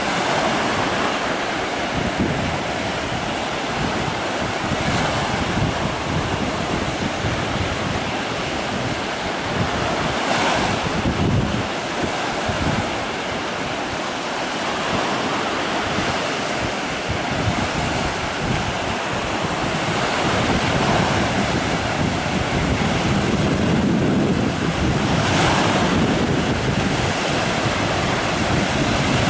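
Small sea waves breaking and washing up the sand in a steady rush of surf, swelling louder a couple of times, with wind buffeting the microphone.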